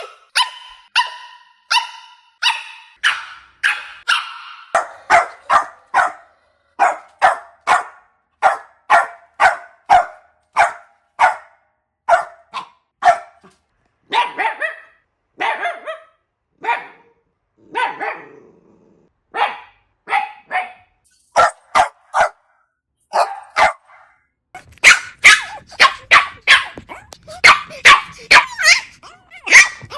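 Puppies barking: a steady run of short, sharp barks, about two a second. From about 25 s the barking gets louder and faster, over a low background rumble.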